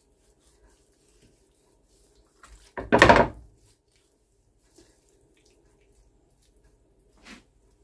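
A brief kitchen noise about three seconds in, a short clatter or splash while handling the fish and utensils, over a faint steady hum, with a small knock near the end.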